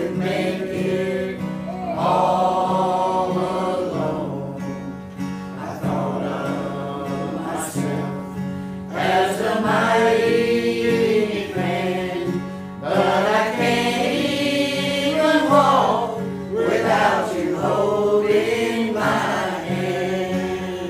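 Small church choir of men and women singing a gospel song, accompanied by an acoustic guitar.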